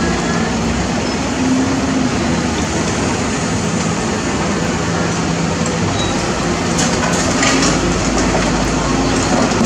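Caterpillar 320D hydraulic excavator's six-cylinder diesel engine running under load as the machine digs and swings a loaded bucket of soil, its pitch wavering with the hydraulic work. A stretch of clatter and rattling comes about seven seconds in.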